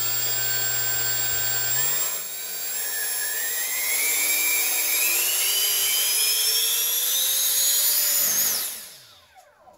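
Freewing 70 mm electric ducted fan on a 4S battery, fitted with a 57 mm thrust tube, running at low throttle and then whining steadily higher in pitch as the throttle is advanced. About eight and a half seconds in the power is cut and the fan spins down.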